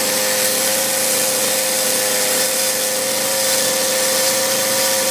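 Small chainsaw with a narrow carving bar held at a steady high speed, cutting detail into a carved wooden eagle head.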